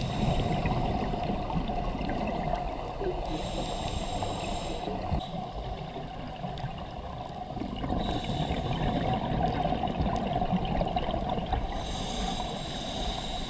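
Scuba breathing heard underwater through a regulator: three hissing inhalations about four seconds apart, with bubbling, gurgling exhalations and a steady water rush between them.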